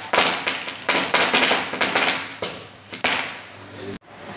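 Diwali firecrackers going off: a string of sharp bangs and crackles about a second apart, each trailing off. The sound cuts off abruptly about four seconds in.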